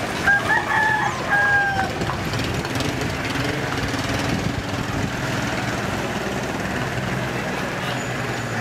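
A rooster crows once, about a second in, a drawn-out call in two parts. Under it runs a steady low mechanical hum, like an engine idling.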